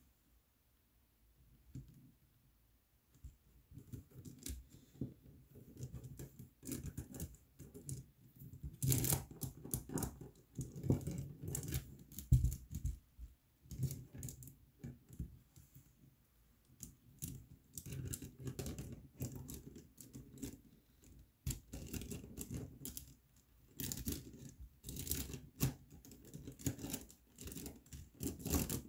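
Plastic K'NEX chain links and puzzle pieces clicking and rattling as the chain is handled and threaded through the rods of a K'NEX baguenaudier puzzle. It is an irregular clatter of small clicks, almost quiet for the first few seconds and then busy and steady.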